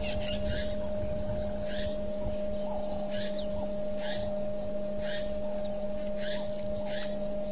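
Outdoor ambience from a waterhole camera's microphone: a steady electrical hum with two constant tones, and over it short high chirps repeated about once a second from small wildlife, with a few quick falling whistles.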